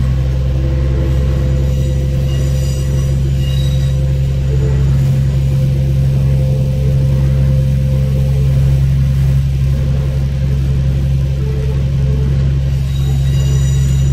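JR Central KiHa 11 diesel railcar running along the line, its engine giving a steady low hum over the rumble of the wheels on the track. A thin, high-pitched squeal of the wheels on a curve comes in briefly about three seconds in and again near the end.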